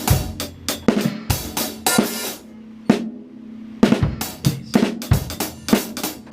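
Acoustic drum kit playing a groove of hi-hat, bass drum and snare strokes. It breaks off near the middle, leaving a single hit ringing for about a second, then the groove starts again.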